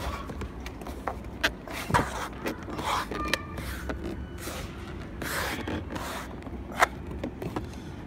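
Hand rubbing and tapping along a car's plastic door trim and door seal, with scattered light clicks and scrapes over a low steady rumble.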